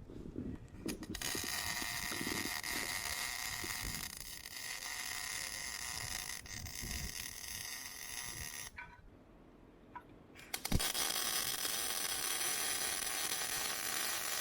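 Miller Matic MIG welder, set at 19.5 volts and 225 wire speed for 3 mm plate, running two weld beads with a steady arc. The first lasts about seven seconds. After a short pause and a click, the second starts about eleven seconds in.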